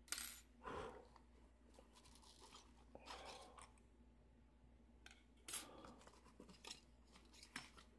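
Faint, scattered rustles and light clicks of small tools and their packaging being handled, about half a dozen short bursts over low room tone.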